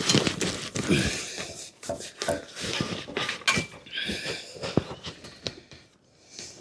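Clicks, knocks and scrapes of metal tools and parts being handled on a bicycle frame, as the crank and bottom bracket area is worked on.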